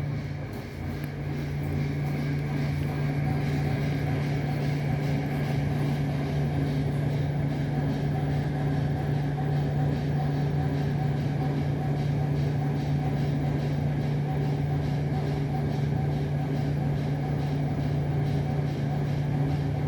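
Steady low mechanical hum holding one constant pitch, with a faint even noise above it and no knocks or bangs.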